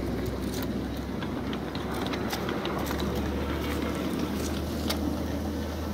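Ride-on miniature railway train rolling along the track, pulled by a small electric locomotive worked from a hand-held controller. A steady low rumble and hum that steps up in pitch about halfway through, with scattered sharp clicks from the wheels and cars.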